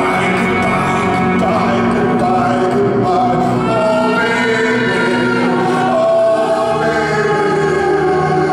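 Live music: grand piano accompanying female backing singers who hold long sustained harmony notes.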